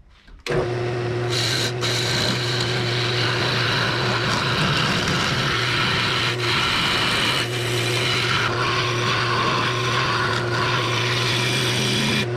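Wood lathe running with a turning tool cutting into a spinning wooden 4x4 blank, making a steady rasping shaving noise over the motor's hum. It starts suddenly about half a second in and cuts off just before the end.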